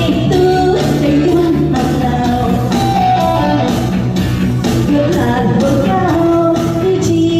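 Song playing loudly, with a singer over a steady beat.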